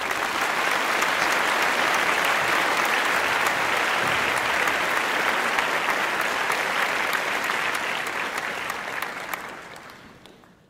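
Applause, a crowd clapping steadily, fading out near the end.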